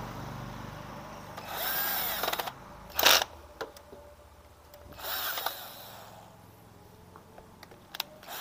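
Handheld power drill/driver running in two short spurts with a rising-and-falling whine, fastening bolts during reassembly, with a sharp metallic knock about three seconds in.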